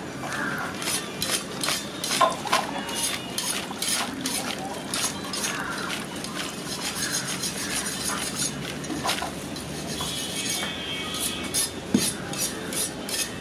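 Repeated clinks and knocks of a steel mug against a large aluminium pot and small clay pots as a milky junnu mixture is scooped and poured, with a sharper knock near the end.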